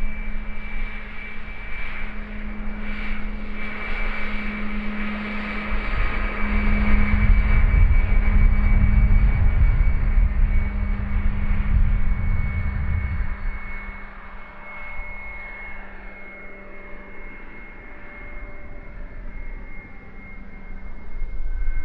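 Twin 50 mm electric ducted fans of a radio-controlled Boeing 737 model jet whining steadily in flight. Wind rumbles on the microphone for a stretch in the middle. The sound then quietens as the model moves farther off.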